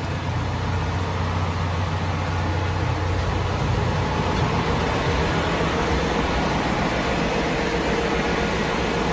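Ship's engine-room machinery running: a loud, steady din with a strong low hum.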